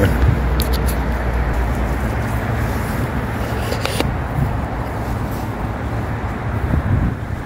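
Steady roar of heavy traffic on a busy main road close by, with a couple of short clicks about half a second in and again about four seconds in.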